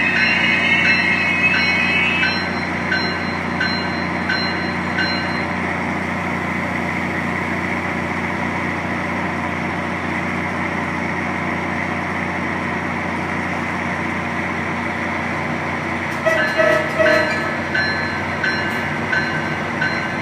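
Diesel locomotive of a MARC commuter train running with a steady low engine hum as the train moves slowly past. A bell rings in even strokes for roughly the first five seconds and again briefly near the end.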